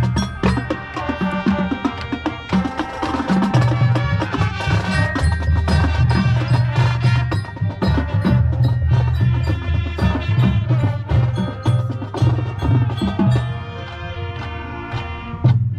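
High school marching band playing its field show: busy struck percussion with pitched bell- and mallet-like notes over a heavy bass line. About 13 seconds in the bass drops away and the music thins to lighter held notes, with one loud hit near the end.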